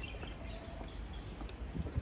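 Walking ambience: footsteps over a steady low rumble, with a few short bird chirps near the start.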